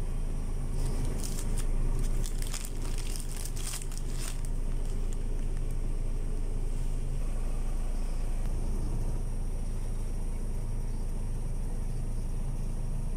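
Paper and plastic grocery bags crinkling and rustling as they are handled, most busily in the first few seconds, over a steady low rumble.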